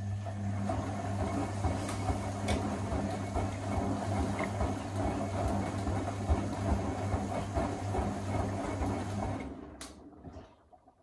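Electra Electronic 1100 front-loading washing machine tumbling a load of wet towels: the drum motor starts with a steady low hum while the towels slosh in the water, then winds down and stops about ten seconds in, with a click.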